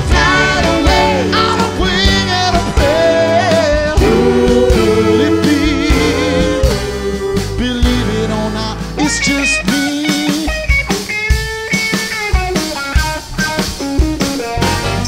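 Live rock band playing: drum kit, bass, electric and acoustic guitars and keyboards. A lead melody line with vibrato rides over the band for the first half, then from about nine seconds in the guitars and drums play short chords and hits.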